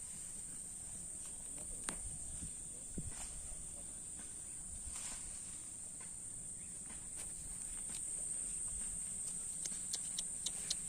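Insects, crickets or similar, giving a steady high-pitched drone, with a few faint sharp ticks near the end.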